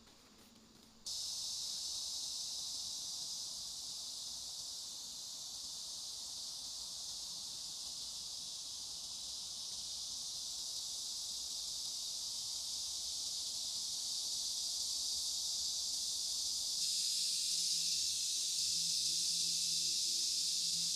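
Steady high-pitched hiss of outdoor forest ambience, switching on abruptly about a second in and growing a little louder near the end.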